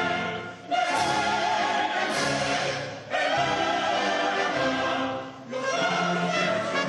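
Symphony orchestra and choir performing together, the voices holding long chords. The phrases are broken by three short pauses.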